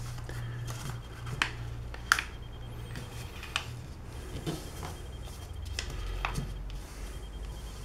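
A sheet of paper being folded and creased by hand: soft handling with a handful of short, sharp crackles of the paper, over a steady low hum.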